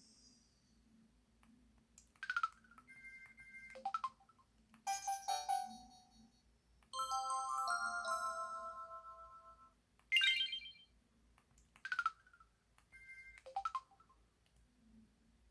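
Built-in sound effects of a 2006 Samsung Anycall Ultra Edition (SPH-V9000) phone, played one after another: short electronic chirps and quick pitch sweeps, brief two-tone beeps, and a chime chord held about two seconds near the middle.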